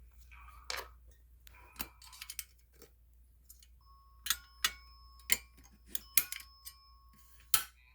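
A string of sharp, irregular clicks and knocks, about a dozen, coming faster and louder in the second half. A faint steady high tone sounds under them from about halfway to near the end.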